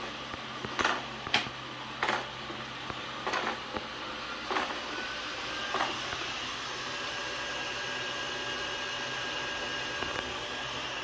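AIRROBO P20 robot vacuum running with a steady whir, broken by a series of short clicks and knocks in the first half. A thin steady whine joins about halfway through.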